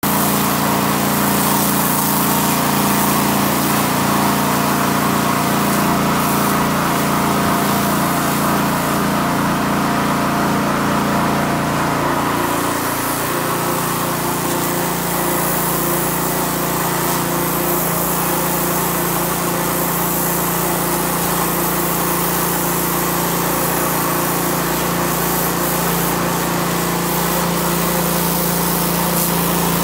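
Pressure washer running steadily, its motor humming under the hiss of the water jet striking concrete. The hum shifts slightly in pitch about halfway through, then holds steady.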